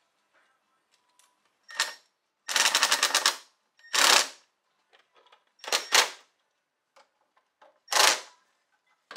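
Cordless power driver tightening hose clamps on an intake in five short bursts, the longest, about a second long, a rapid rattle of strikes.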